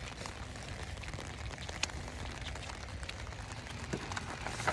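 Rain falling on an umbrella held close over the phone: a steady hiss with scattered drop ticks.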